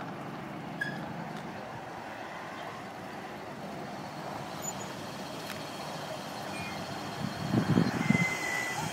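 Steady road traffic noise from passing cars and trucks, with a louder, uneven stretch of noise near the end.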